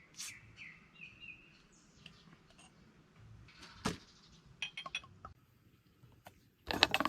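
A few short bird chirps, then scattered light clicks and a brief clatter of small hard objects near the end.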